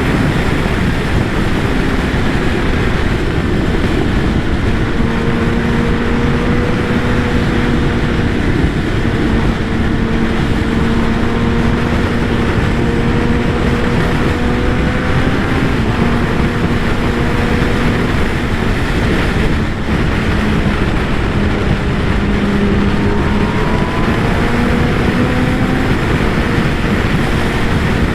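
Kawasaki ZX-10R's inline-four engine running at a fairly steady speed, its pitch drifting slowly up and down, under a heavy rush of wind on the microphone.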